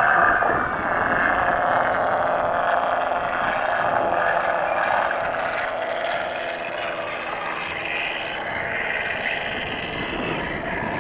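Electric RC Carbon-Z Cub taxiing on the ground, its motor and onboard engine-sound speaker running steadily. The sound slowly fades as the plane moves away.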